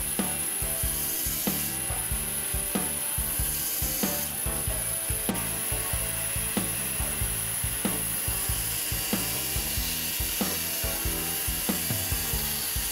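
Bandsaw running and cutting a thick block of wood. A short tick repeats evenly about every second and a quarter.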